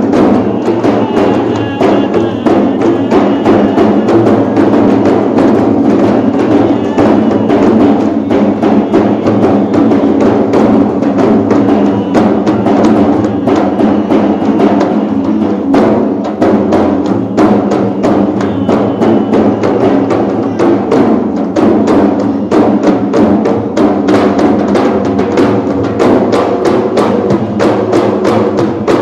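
A group of large hand-played frame drums beaten together in a fast, dense, continuous rhythm, with a man's chanting voice rising above them at times.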